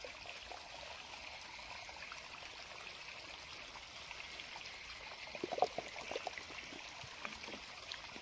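Steady rush of flowing river water at the bank, with a few small splashes a little past halfway through as the cast net is drawn in out of the shallows.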